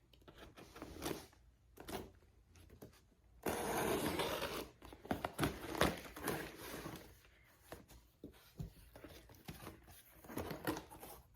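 Cardboard box being opened by hand: irregular scraping, rustling and small knocks of the flaps and packing, with a louder stretch of rubbing about three and a half seconds in.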